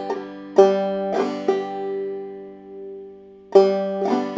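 Clawhammer banjo in open G tuning: the open third string followed by brush-thumb strokes, played twice, with the closing chord left to ring for about two seconds before playing starts again near the end.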